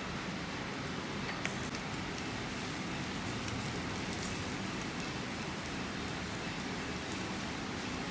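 Marinated chicken skewers sizzling over glowing charcoal: a steady hiss with a few faint clicks.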